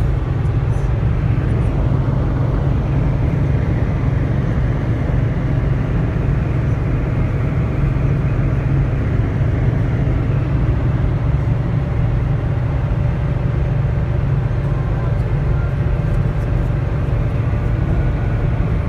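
Steady low rumble of engine and tyre noise inside a vehicle cab cruising on a highway at about 100 km/h.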